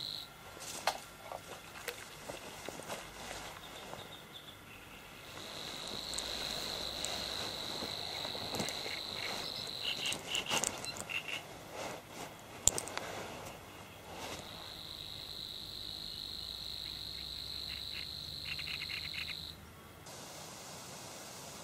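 A cricket trilling at a steady high pitch in two long spells of about five seconds each, with scattered short clicks and taps in between.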